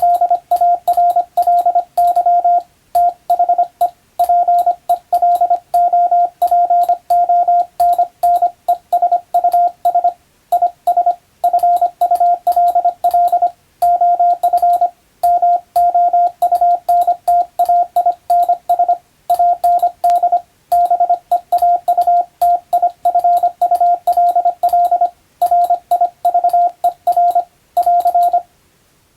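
Morse code (CW) telegraphy: a single steady mid-pitched beep keyed on and off in quick dots and dashes, sending English-language telegram practice text. It stops about a second before the end.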